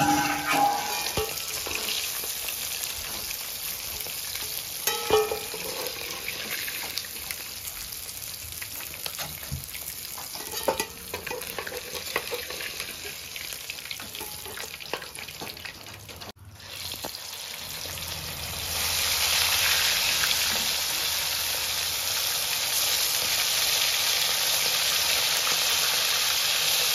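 Stingray fish pieces sizzling in hot oil in a kadai, with spatula scrapes and knocks as the fried pieces are lifted out. After a break about 16 seconds in, a louder, steady sizzle of potatoes frying in the same oil.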